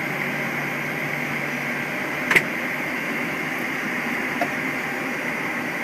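Steady flight-deck noise of a Boeing 737-800 on the ground with its engines idling, a constant even rush of air conditioning and engine hum. A single sharp click about two seconds in.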